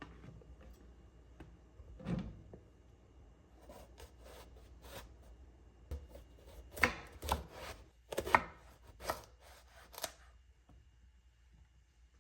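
Knife chopping on a cutting board in irregular strokes: a single soft chop early, then a run of six or so sharper chops, unevenly spaced, in the second half.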